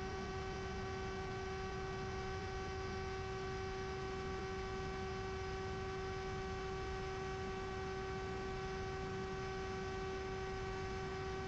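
Steady hum at one unchanging pitch with a stack of overtones above it and a faint hiss underneath.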